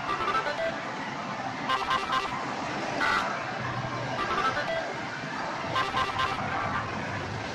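GoGo Juggler pachislot machine being played: short electronic beeps and clicks of the reel start and stop buttons, several in quick succession about every two seconds, over the steady din of a busy slot hall.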